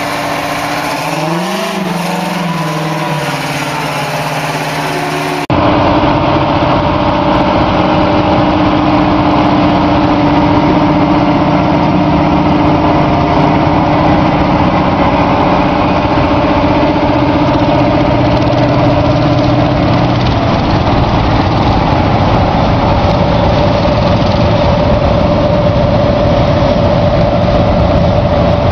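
Heavy tractor engine running, its pitch rising and falling once about two seconds in. About five seconds in, an abrupt cut to a louder, steady engine drone.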